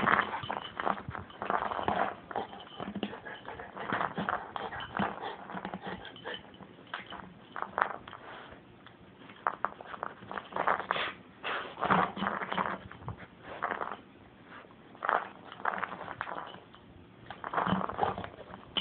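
Golden retriever chewing and gnawing at a hollow orange plastic ball with holes. She makes irregular bites, scrapes and clicks of teeth on plastic, with louder bouts about two seconds in, near twelve seconds and near the end.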